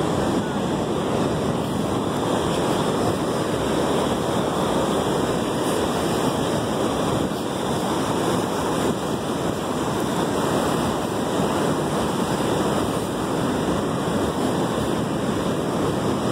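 Ocean surf breaking and washing over the rocks along a stone jetty: a steady, unbroken rushing, with wind buffeting the microphone.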